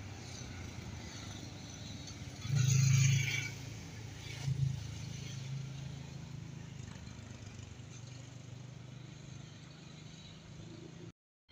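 Alstom Citadis X05 tram on Paris line T10 running away from the stop, its low electric hum slowly fading, with a louder rushing noise about two and a half seconds in and a shorter one about a second later. The sound cuts off suddenly near the end.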